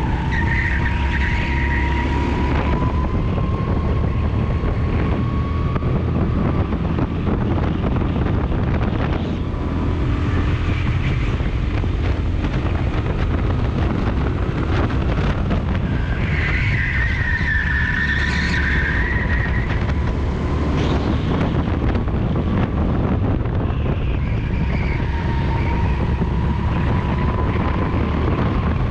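Rental go-kart's small engine running at race speed, heard onboard under heavy wind rush on the microphone, its pitch rising slowly in the first few seconds.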